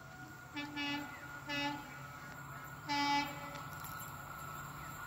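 Distant horn of an approaching Indian Railways EMD diesel locomotive, sounded in three short blasts about a second apart, each louder than the one before.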